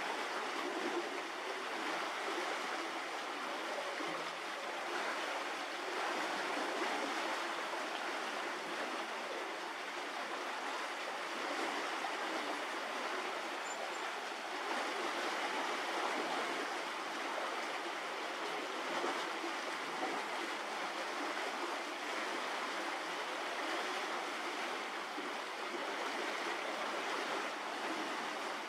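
Steady, even rushing noise of running water, with no breaks.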